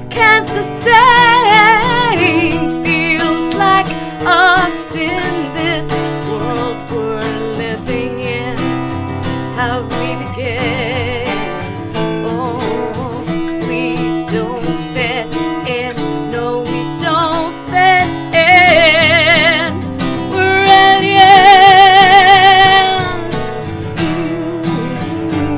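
Live acoustic guitar strumming with a woman singing sustained high notes with vibrato, and a long, loud held note about three-quarters of the way through.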